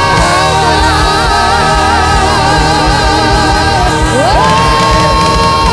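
Live worship music: singers hold long notes with vibrato over a full band with a steady low beat. About four seconds in, a new sung note slides up and is held.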